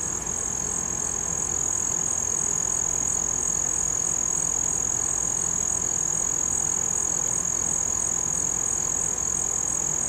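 A steady, high-pitched trill from singing insects, one unbroken note.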